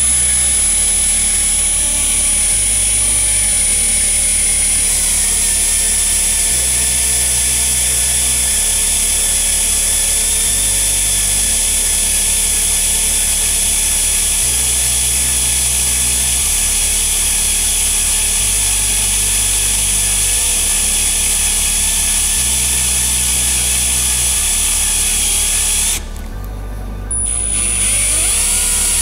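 Cordless drill running steadily with a high whine as it bores a hole through stainless steel sheet, stopping for about a second near the end and starting again. Background music with a bass line plays underneath.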